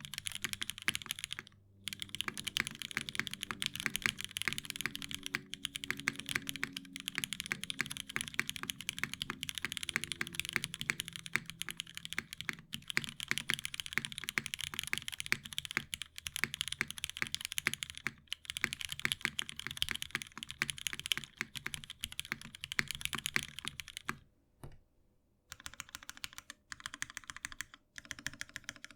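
Steady fast typing on a Dalco 959 Mini mechanical keyboard with an aluminium plate, lubed Cherry MX Hyperglide Black linear switches and GMK keycaps: a dense run of keystroke clacks with a few short breaks and a pause of about a second near the end.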